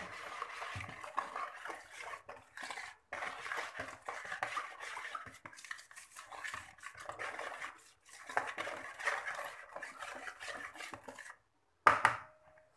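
A metal spoon beating a liquid mixture in a plastic bowl: a fast, scraping clatter in three spells with short pauses between, then one sharp knock near the end.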